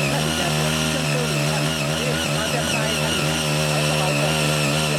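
Small CY80 walk-behind cultivator with a 5 HP engine running steadily under load, its six rotary tines tilling hard red laterite soil.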